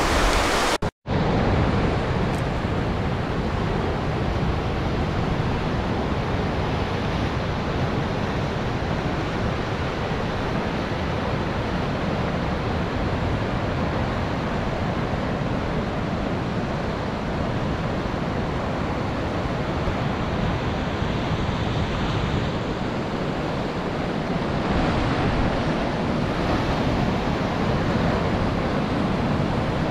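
Ocean surf washing onto a sandy beach, a steady rushing with wind buffeting the microphone; a little louder near the end.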